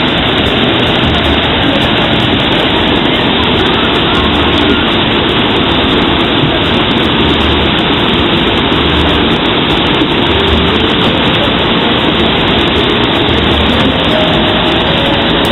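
Hot spring water pouring and cascading down in a steady, loud rush, without a break.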